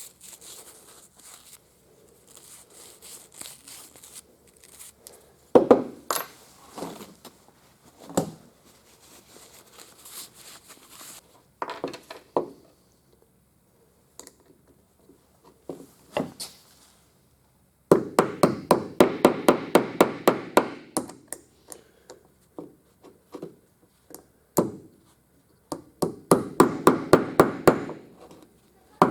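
Light hammer taps in two quick runs of about five or six strikes a second, in the second half, after scattered knocks and clunks of parts being handled.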